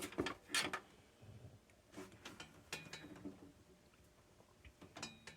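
Faint clicks and knocks of cable plugs being handled and pushed into the ports on the back of a desktop computer: a few quick clicks at the start, more around two to three seconds in, and another near the end.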